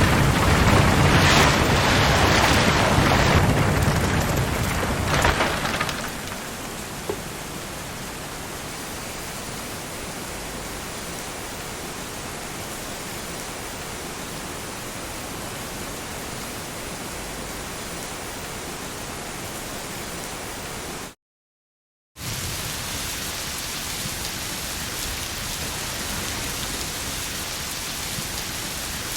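Heavy rain falling as a steady hiss, louder for the first six seconds with a deep rumble of thunder under it, then settling to an even downpour. The sound cuts out completely for about a second near the 21-second mark before the rain resumes.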